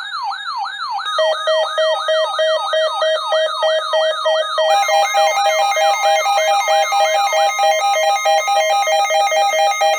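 Weather radio receivers' alert alarms going off, signalling an incoming snow squall warning. A siren-like falling sweep repeats about two or three times a second. Rapid beeping tones join about a second in, more beeping layers on about five seconds in, and the sweep stops shortly after seven seconds.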